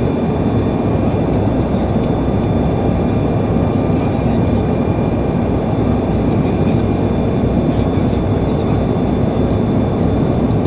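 Steady engine and rushing-air noise inside a passenger airliner's cabin, with a faint steady high whine.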